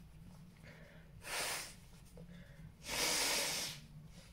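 A man blowing his nose into a tissue twice: a short blow about a second in, then a longer, louder one about three seconds in, clearing his nose after a nasal swab.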